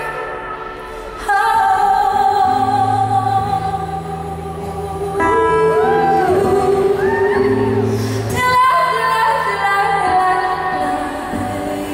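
A woman singing live with instrumental accompaniment: long held notes with vibrato and sliding runs between them, over steady low backing notes.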